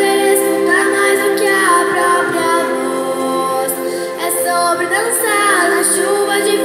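Children's and youth choir singing with sustained instrumental accompaniment underneath.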